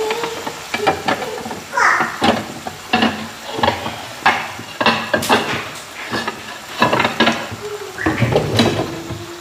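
Metal fork clinking and scraping against a pot while turning chicken pieces frying in bubbling oil, over a steady sizzle of the frying. The pot's glass lid clatters as it is lifted off and set aside.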